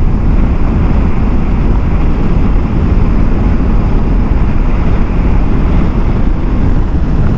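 Steady wind rush over a helmet-mounted action camera's microphone while riding a motorcycle at road speed. The motorcycle's engine and tyre noise run underneath.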